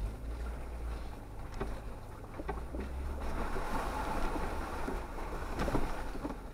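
A 4x4 off-road vehicle creeping along a wet, muddy trail. There is a steady low engine rumble, with tyres sloshing through puddles and mud that swells a little past halfway, and a few sharp knocks.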